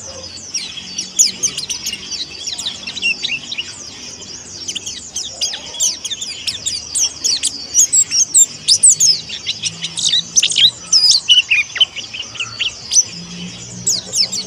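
Mountain white-eye (pleci monty) chirping and twittering in rapid, high, thin notes, growing busier and louder around the middle.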